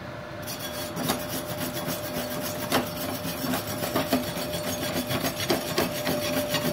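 Wire brush scrubbed back and forth over a fresh gasless flux-core MIG weld on thin steel plate, scraping off the slag so the bead can be inspected. The scratchy scrubbing starts about half a second in and goes on in uneven strokes.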